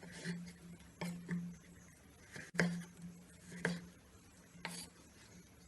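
Carrots being worked with a kitchen tool on a cutting board: about seven short rasping strokes, irregularly spaced.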